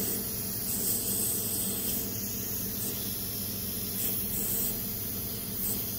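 Steady hiss of running machinery with a low hum underneath, the background noise of an equipment room.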